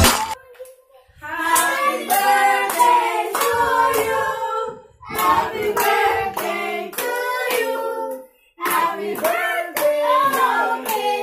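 A group of children singing together and clapping in time, about two claps a second; the singing and clapping break off briefly twice.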